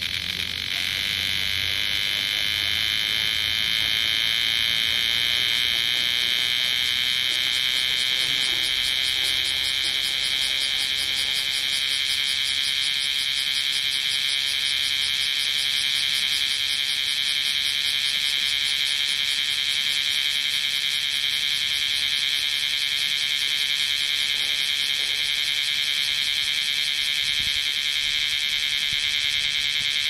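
Bear cicada (kumazemi, Cryptotympana facialis) singing: a loud, high, continuous buzz that swells over the first few seconds and then holds steady.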